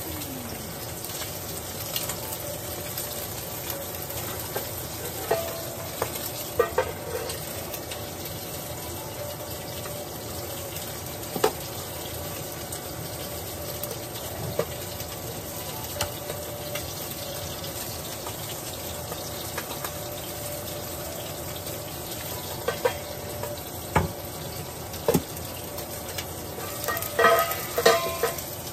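Ribeye steak sizzling steadily as it sears in a hot frying pan. A few short knocks, and a brief clatter near the end.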